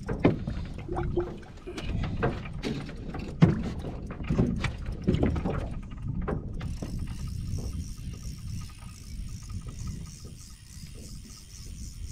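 Wind rumbling on the microphone, with a run of knocks and thumps against an aluminum boat's deck and hull in the first half, the loudest about three and a half seconds in. From about halfway a faint steady high hiss joins the wind.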